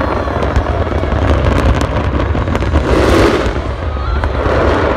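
Aerial fireworks shells bursting in quick succession: a dense crackling over a continuous low rumble of booms.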